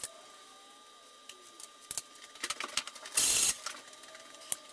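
Scattered clicks and taps of a compression tester's hose and fittings being worked in the spark plug wells. A brief hiss comes about three seconds in.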